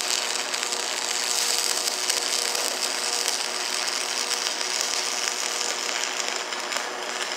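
Stick (SMAW) welding arc burning steadily: a continuous sizzling crackle as a bead is laid with an electrode that is burning down short.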